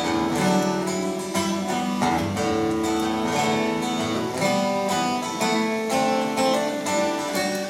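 Acoustic guitar strummed in a steady rhythm of chords, about two strokes a second, with no singing: an instrumental passage of the song's accompaniment.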